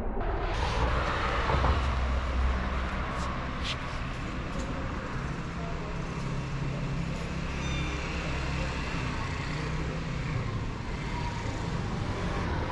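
City street traffic: a steady rumble of road noise, slightly louder as a vehicle passes a second or two in.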